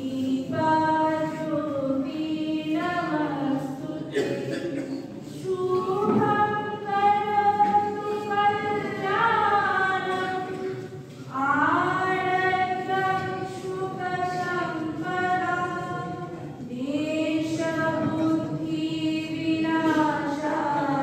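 A group of people singing a slow song together in unison, with long held notes in phrases that break off every few seconds.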